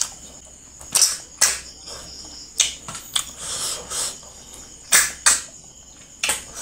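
Close-miked eating noises: a series of sharp, wet mouth smacks and clicks from chewing, about eight in all, irregularly spaced.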